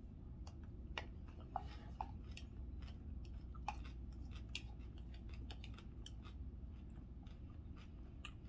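A person chewing a mouthful of chicken salad close to the microphone, faint irregular crunches and small wet clicks, over a low steady hum.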